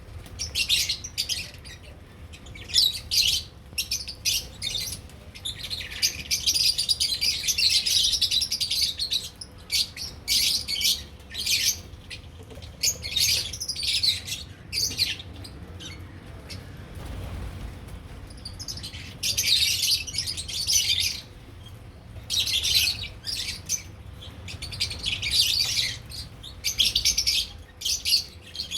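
Lovebirds chattering in repeated shrill, scratchy chirping bursts, with a lull of a few seconds a little past the middle.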